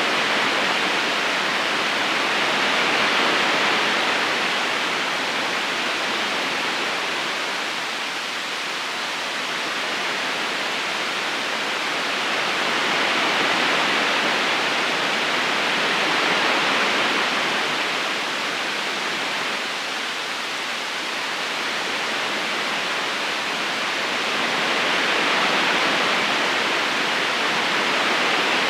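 Steady rushing of a river current flowing over rocks, swelling and easing slowly in long waves roughly every ten to twelve seconds.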